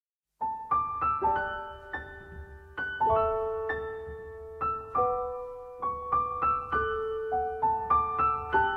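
Background music: a gentle piano melody of single struck notes and soft chords, starting about half a second in.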